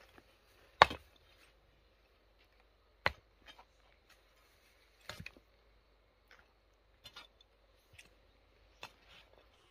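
A series of sharp knocks, about six of them at uneven gaps of one to two seconds, the loudest about a second in, like chopping or striking on a hard surface.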